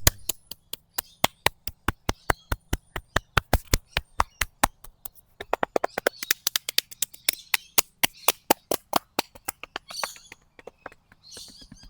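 Hands tapping rhythmically on the body: quick, sharp taps at about four or five a second, with a brief pause about halfway through.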